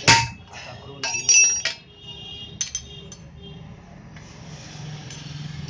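Hammer blows on a flat steel strip against an anvil, bending it into a U shape, each strike ringing. One hard strike comes at the start, a quick cluster of two or three about a second in, then a couple of lighter taps, and a soft hiss near the end.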